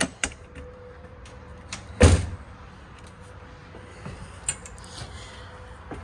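Clicks from a fifth-wheel RV's entry door and latch, then one loud, dull thump about two seconds in as the door is worked. A faint steady hum lies underneath.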